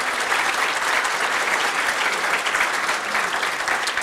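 Audience applauding, many hands clapping in a dense, steady patter.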